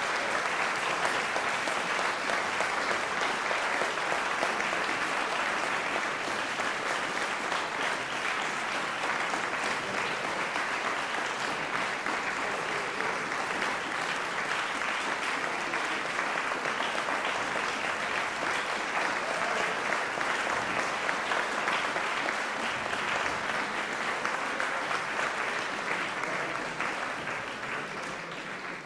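Concert audience applauding steadily, dying away near the end.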